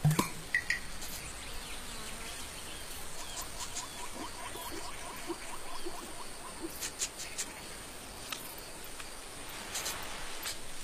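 Steady background of insects chirping, with a quick run of faint chirps a few seconds in and scattered soft clicks.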